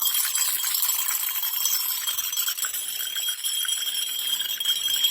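Many glasses clinking and jingling against each other in a continuous, dense high tinkle with a faint ringing tone running through it.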